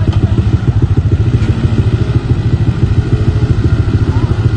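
Engine of a Ranger side-by-side utility vehicle running hard under load as it tows a stuck van through deep mud: a loud, steady, low engine note with rapid pulsing.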